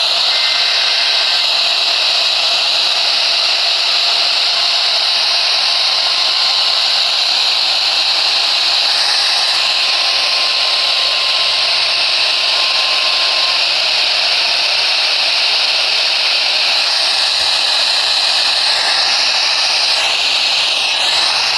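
Steady, loud hiss of FM radio static from a radio receiver, with a faint steady tone through the middle.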